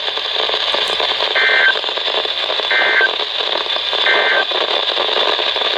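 Emergency Alert System end-of-message data tones on a NOAA Weather Radio broadcast: three short, identical two-tone digital bursts about a second and a half apart, over steady radio hiss. They mark the close of the warning message.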